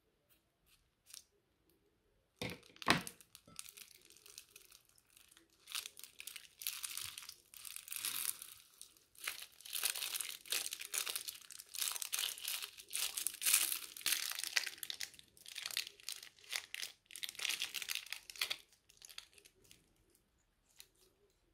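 Scissors snip a plastic piping bag full of foam-bead slime, then the bag crinkles and crackles in dense, uneven waves as it is squeezed and the slime is pushed out. The crinkling starts with a couple of sharp snaps and fades away near the end.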